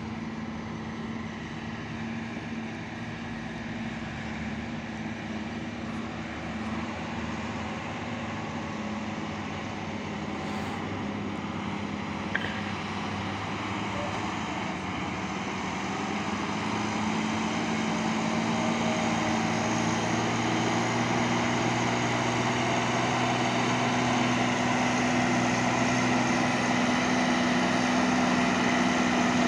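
Heavy diesel engines running steadily: the Kobelco 220 hydraulic excavator's engine, joined by a loaded tipper truck's engine, which grows louder from about halfway through as the truck climbs away under load.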